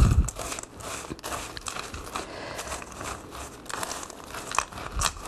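A silicone spatula stirring a dry crumble topping of oats, pistachios and dried fruit in a stainless steel mixing bowl: a continuous crunchy scraping and rustling, with a low bump at the start and another near the end.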